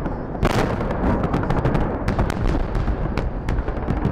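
Fireworks salute: shells bursting one after another in quick succession over a constant low rumble, with one especially loud bang about half a second in.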